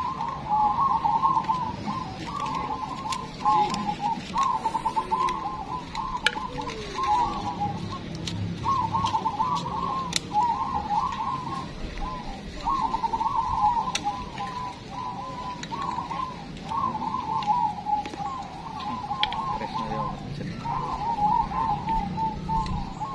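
Many caged zebra doves (perkutut) cooing at once, their quick stuttering coo phrases overlapping into a near-continuous chorus with only brief gaps.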